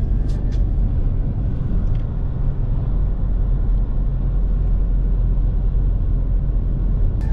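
Wind buffeting the camera microphone, a steady low rumble, with a few crunching footsteps on gravel in the first half-second.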